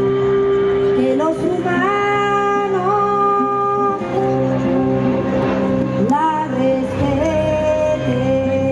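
Live ethnic folk music: a voice sings a wordless, gliding melody over a steady held drone.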